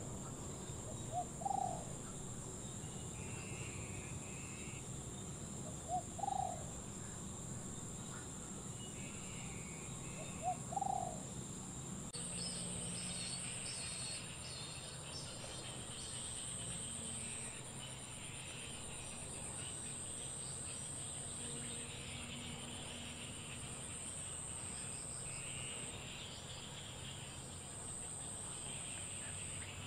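Wetland insect chorus: a steady high-pitched drone, with three short rising calls about four to five seconds apart in the first half. About twelve seconds in, the chorus changes abruptly to a pulsing pattern.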